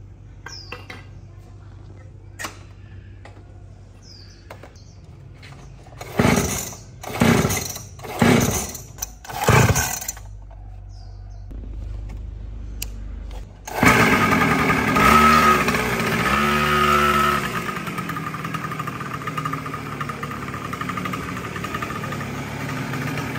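Restored Honda NSR50's two-stroke engine being started: four loud kicks about a second apart, then a few seconds later the engine catches. It revs up and down briefly, then settles into steady running.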